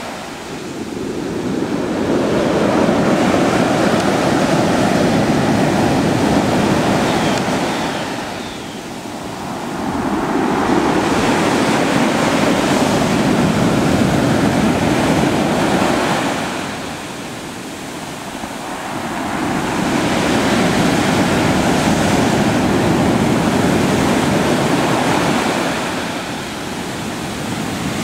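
Pacific Ocean surf washing in around the listener's feet in shallow water. The rush of the waves swells and eases in long surges about every nine seconds.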